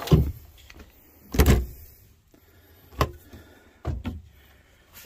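A series of about five separate knocks and scrapes, like things being handled or bumped. The loudest and longest, a scraping thud, comes about a second and a half in.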